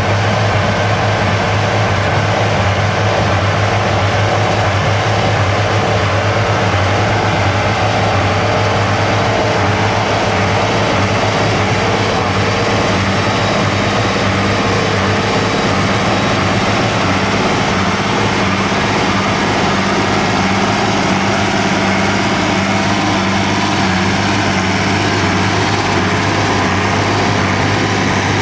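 International Harvester Farmall tractor engine running steadily at constant speed, a low even drone with no change in pitch.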